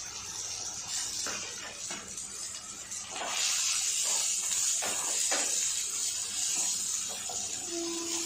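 Green chillies and garlic cloves sizzling in hot oil in a pan, the sizzle growing louder about three seconds in as the mix is stirred, with scrapes and knocks of a wooden spatula against the pan.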